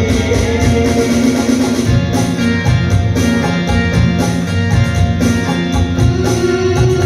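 Instrumental passage of a Hindi film song played live on harmonium, electronic keyboard and dholak, with the dholak keeping a steady beat.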